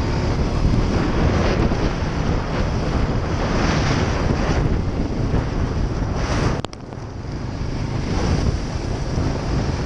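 ATV engine running under heavy wind noise on the microphone, with a single sharp knock about two-thirds of the way through, after which the sound briefly drops away.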